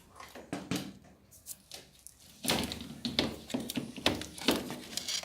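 Irregular knocks, taps and clicks of washing machine parts being handled during a pump swap, sparse at first and busier about halfway through.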